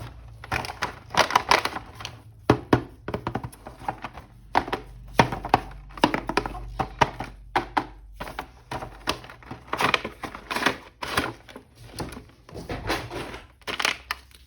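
Hands handling and opening toy packaging: an irregular run of clicks, taps and rustles of plastic and cardboard.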